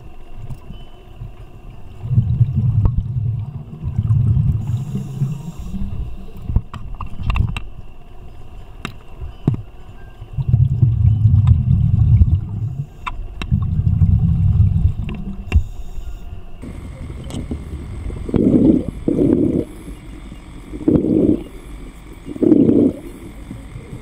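Scuba regulator exhalation bubbles heard underwater: two long stretches of low bubbling, each a few seconds, then four short, higher bursts of bubbles in the last third.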